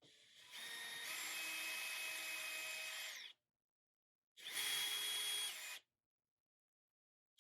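Electric drill driving screws, in two runs: a longer one of about three seconds and a shorter one about a second and a half, each with the motor whine rising as it spins up and falling as it stops. The screws fasten metal corner braces into 2x4 framing.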